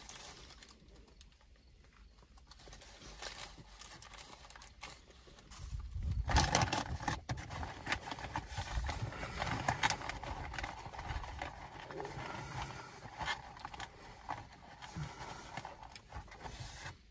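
A person eating fast food close to the microphone: chewing with wet mouth clicks and smacking, fainter at first and louder from about six seconds in.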